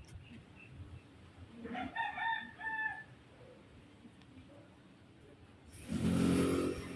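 A rooster crowing in a few short segments, about two seconds in. A louder, lower buzzing sound starts about six seconds in and runs on.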